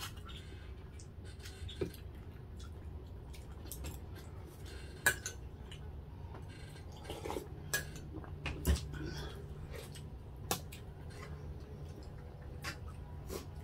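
Cutlery and dishes clinking during a meal: a spoon and fork tapping and scraping plates and bowls, in scattered separate clicks.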